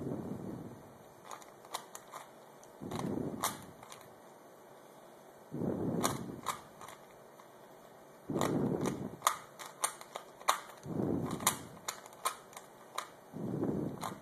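Plastic Rubik's Cube layers being turned by hand: irregular sharp clicks and snaps as the faces are twisted, with a softer rushing sound about every three seconds.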